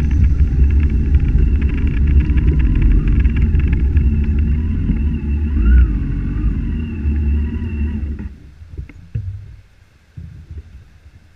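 Motorcycle engine running with a steady low rumble, then cut off abruptly about eight seconds in, leaving only a few faint knocks.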